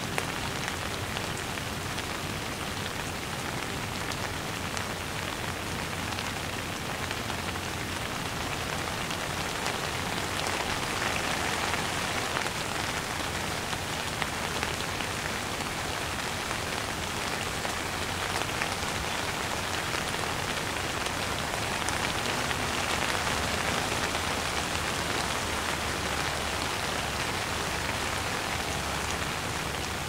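Steady rain falling, a dense patter of individual drops, swelling slightly a couple of times.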